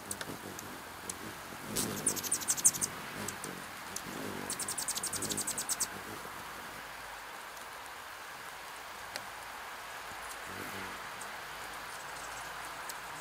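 Steady rain, with two runs of rapid, high-pitched chittering chips from hummingbirds, about nine a second: one about two seconds in, and a longer one about four seconds in.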